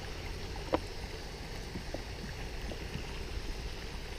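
Wind rumbling on the microphone outdoors, with one sharp click a little under a second in and a few faint ticks after it.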